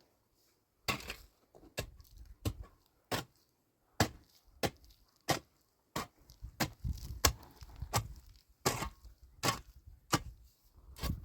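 A run of sharp knocks or chops, irregular, roughly one to two a second, some with a dull thud beneath.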